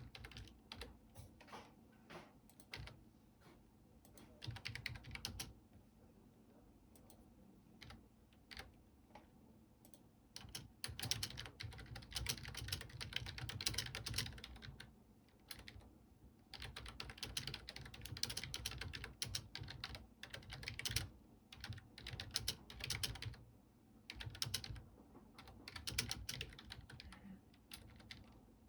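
Typing on a computer keyboard: quick runs of key clicks in bursts of a few seconds, with short pauses between them.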